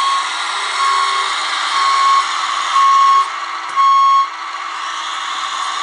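Reversing beeper of a scale RC wheel loader, a single steady tone beeping about once a second, five times, stopping about four seconds in. Under it runs a steady motor hum with a broad hiss.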